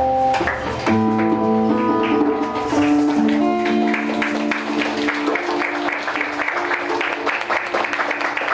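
Live song ending on held instrumental chords, then audience applause from about four seconds in, with the last notes still ringing under it.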